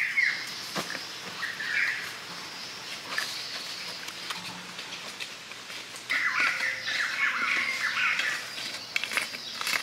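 High, squiggly chirping calls in bursts, busiest in the second half, over a steady high-pitched hiss, with a few sharp knocks.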